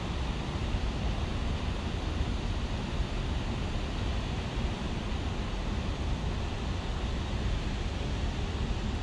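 Steady rushing of fast, turbulent river water, with wind rumbling on the microphone.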